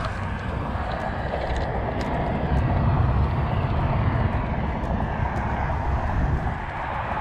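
Wind buffeting the microphone: a steady, deep rumble with a few faint ticks.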